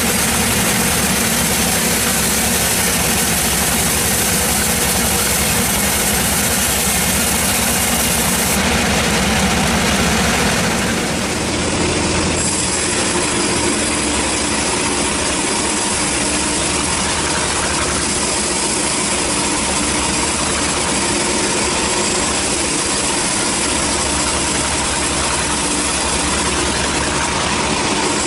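Vertical band sawmill running and cutting through a log: a loud, steady machine drone with the blade's hiss. The sound changes abruptly about eleven seconds in.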